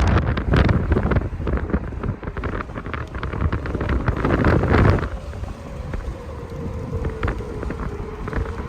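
Strong wind buffeting the microphone in gusts, loudest over the first five seconds. Underneath, an outdoor tornado warning siren sounds faintly as one sliding tone, dipping in pitch and then starting to rise near the end.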